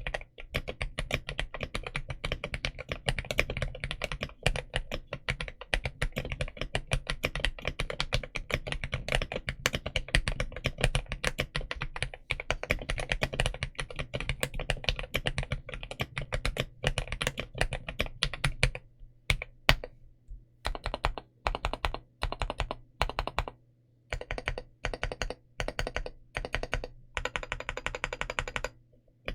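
Modded RoyalAxe L75 mechanical keyboard with Gateron Yellow Pro linear switches being typed on quickly and continuously. About nineteen seconds in, the typing turns to slower single keystrokes and short runs of keys.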